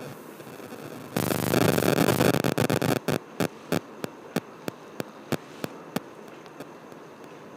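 A loud electrical buzz for about a second, then a run of evenly spaced clicks, about three a second, fading away, over a steady hiss: electronic interference on the recording.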